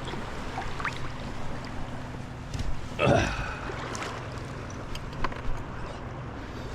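Yamaha WaveRunner personal watercraft engine running steadily at a low hum, with wind and water noise. A brief louder noise comes about three seconds in.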